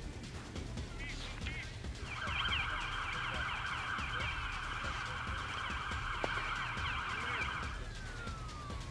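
An emergency vehicle siren with a fast warble comes in about two seconds in, holds for around five seconds, then winds down in a falling tone near the end.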